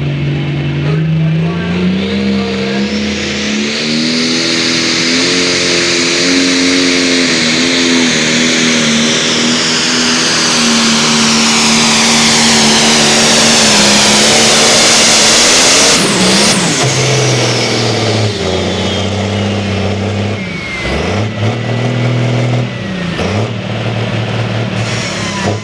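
A tractor-pulling vehicle's engine at full throttle during a pull, held at high revs with a high whine climbing in pitch and growing louder. About sixteen seconds in it is throttled back sharply, then runs at lower revs with a few short blips of the throttle near the end.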